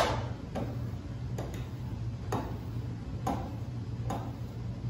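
Draw knife being stropped on a leather paddle strop: a string of short sharp strokes, a little more than one a second, each a quick tick with a brief swipe, over a steady low hum. The strokes knock off the burr left from sharpening.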